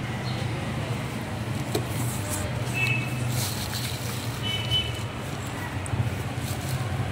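Bubble wrap crinkling in short bursts as a wrapped speedometer assembly is handled and lifted from its cardboard box, over a steady low hum like nearby traffic or an engine.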